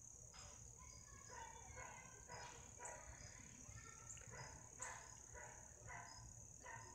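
Faint, steady high-pitched chirring of an evening cricket chorus, with a few faint short sounds every second or so.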